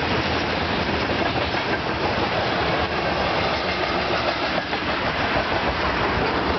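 Loaded ethanol tank cars of a freight train rolling past close by: a steady noise of steel wheels running on the rails.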